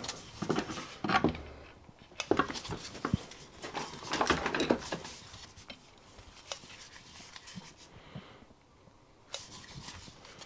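Intermittent clinks, taps and scrapes of metal parts being handled and fitted against the cast-iron crankcase of a Stuart P10b steam engine, with a lull near the end.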